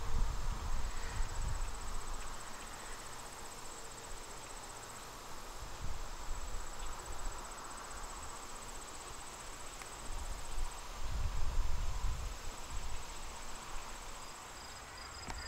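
Crickets chirping in a steady, high-pitched trill. A low rumble swells under it a few times: about a second in, around six seconds, and again from about ten to thirteen seconds.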